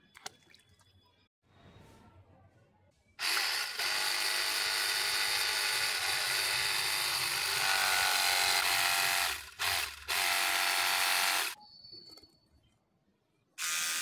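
EAFC cordless battery pressure washer running, its pump motor whining under the hiss of the water jet spraying onto an evaporator core's metal fins. It starts about three seconds in, cuts out twice briefly near ten seconds, stops about a second and a half later, and starts again near the end as the trigger is released and pressed.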